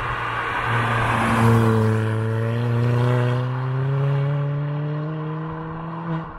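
Tuned Ford Fiesta ST with a Revo RT330 upgraded turbo driving past under acceleration. A rush of road noise as it approaches, then about a second in a steady engine note that climbs slowly in pitch as it pulls away, fading near the end.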